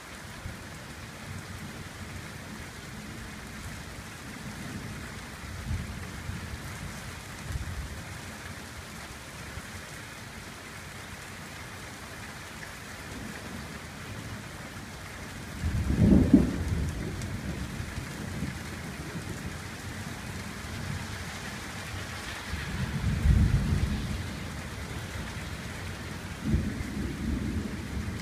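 Steady rain with thunder rumbling through it: a few faint rumbles, then a sudden loud clap and rumble about halfway through, another strong rumble about two-thirds of the way through, and a shorter one near the end.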